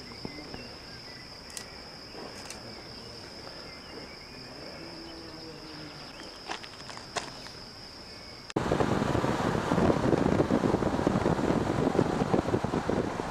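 A steady, unbroken high-pitched insect trill with a few faint clicks. About two-thirds of the way through it cuts off suddenly to loud wind rumble buffeting the microphone.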